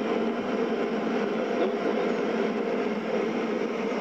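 Portable heater running, an even, steady rushing noise.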